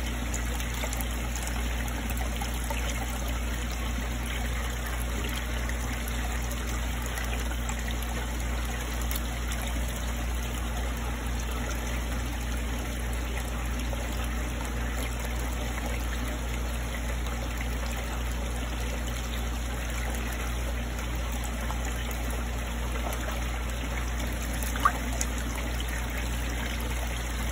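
Water trickling steadily in a fish tank over a low, even pump hum, with one faint click near the end.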